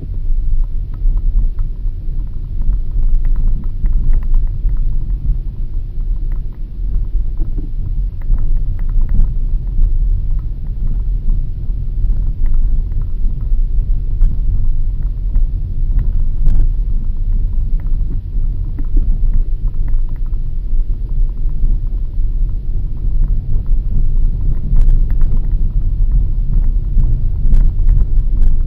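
Skoda Octavia A7 driving in city traffic, heard from a dash cam inside the cabin: a steady low rumble of engine and road noise, with scattered light clicks and knocks.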